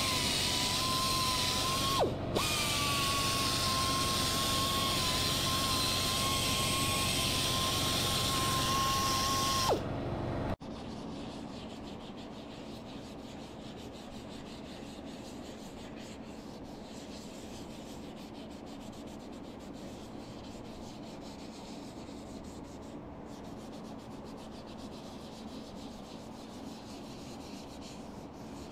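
Compressed-air blow gun hissing with a steady whistle, cut off briefly once, then shut off about ten seconds in. After that, sandpaper rubs against a spalted-wood piece spinning on the lathe, a quieter steady scratchy rubbing.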